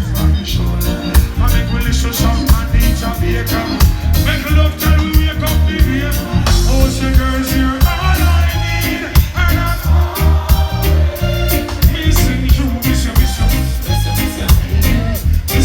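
Live reggae band playing loudly, with a heavy, evenly pulsing bass line.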